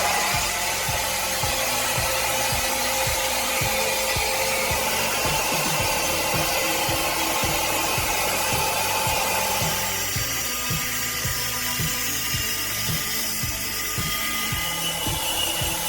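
Power saw cutting through a large log, a steady high-pitched whine and hiss, under background music with a regular beat.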